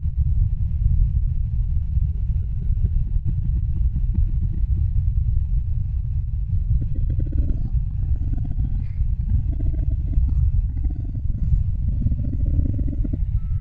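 Designed soundscape: a loud, steady low rumble, joined partway through by a rapid fluttering rattle with slow swooping tones rising and falling over it, which stops shortly before the end.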